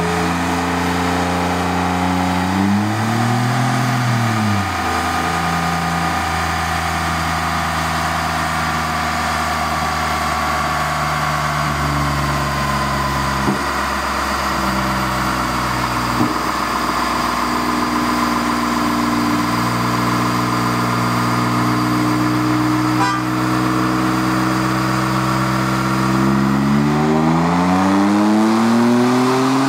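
Ford 3.5 L EcoBoost twin-turbo V6 in a 2014 F-150, straight-piped with the mufflers removed, running on a chassis dyno. Its revs rise and fall briefly about three seconds in, hold steady through the middle with a couple of light knocks, and then climb steadily near the end as a pull begins.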